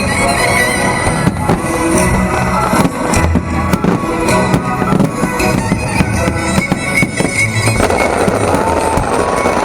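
Aerial fireworks going off in a rapid, irregular string of sharp bangs over loud show music. Near the end the bangs thin out and gliding whistle-like tones come in.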